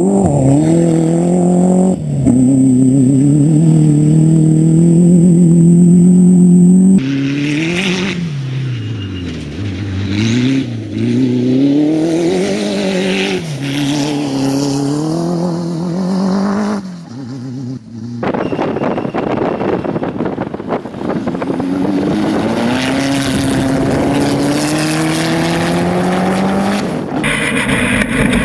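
Off-road race buggy engine revving hard, its pitch repeatedly climbing and falling back with the throttle, over several cut-together passes. Near the end it is heard from the onboard camera on the buggy.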